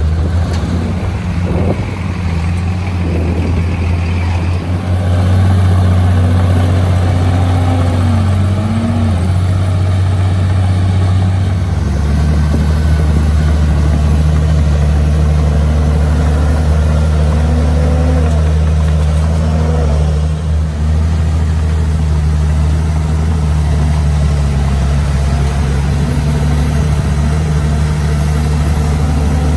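Komatsu bulldozer's diesel engine running steadily, its note shifting lower about twelve seconds in.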